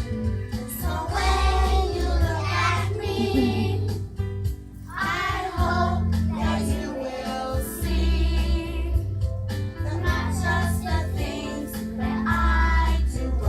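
A song playing: voices singing over a backing track with a heavy bass line.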